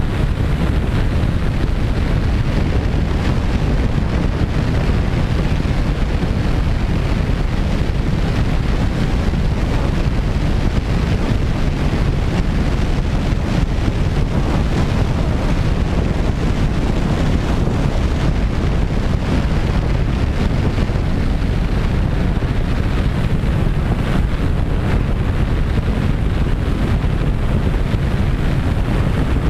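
Steady rushing wind noise buffeting the microphone of an onboard camera on a radio-controlled de Havilland Canada DHC-6 Twin Otter model in flight.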